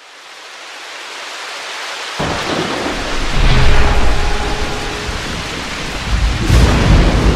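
Thunderstorm: a steady rain hiss fades in, then thunder breaks in suddenly about two seconds in and rumbles on, swelling again near the end.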